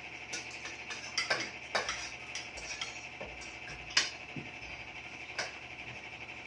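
Kitchen utensils clinking: a few sharp metal taps, like a spoon or ladle against a pot, over a steady high hiss. The loudest clink comes about four seconds in.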